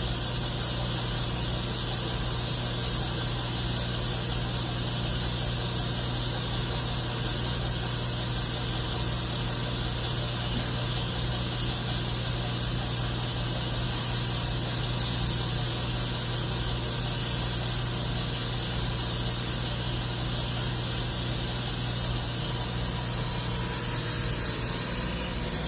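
Highland Park 24-inch U Model slab saw running steadily while cutting: an even motor hum under a constant high hiss from the blade and coolant. The sound stays even throughout, the smooth running of a finely tuned slab saw.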